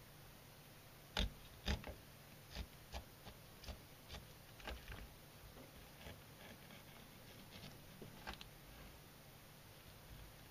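Kitchen knife cutting a shiromutsu (oomehata) fish open along its back on a wooden cutting board: faint irregular clicks and crunches as the blade goes through the backbone and rib bones, the two loudest a little over a second in.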